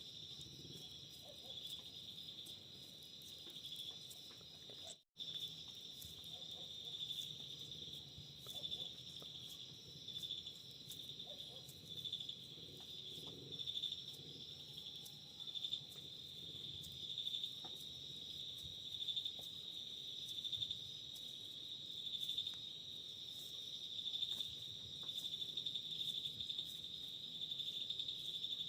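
Dry mud crackling and crumbling in small, soft clicks as it is crushed, over a steady, pulsing chorus of crickets. A brief break in the sound about five seconds in.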